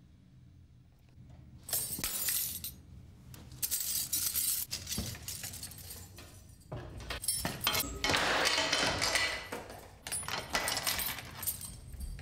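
Several bursts of clinking, rattling noise full of sharp clicks, the longest and loudest in the second half.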